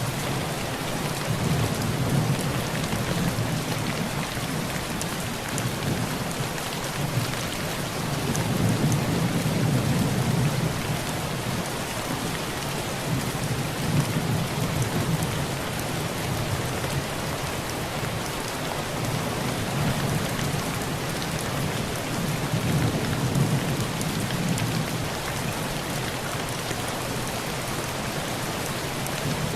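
Heavy rain pouring steadily on a tin roof, with low rumbles of thunder swelling and fading several times.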